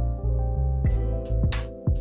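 Background music: a bass line under sustained keyboard chords, with drum hits coming in about a second in.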